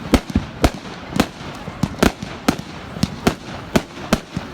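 Fireworks going off: a quick run of about a dozen sharp bangs, two to three a second.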